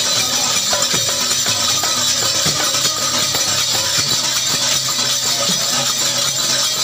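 A large double-headed barrel drum and small hand cymbals playing a folk dance rhythm. The cymbals jingle without a break over repeated drum strokes that sink in pitch.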